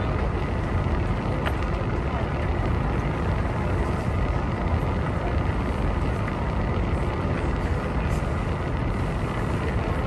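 Tour cruise boat's engine running steadily: an even low rumble with no breaks.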